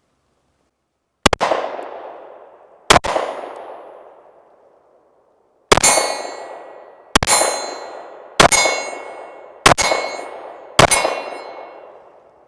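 Seven pistol shots from Luger pistols in 9mm and 7.65 Parabellum, fired one at a time at an uneven pace. Each is a sharp crack that trails off in a long ringing echo.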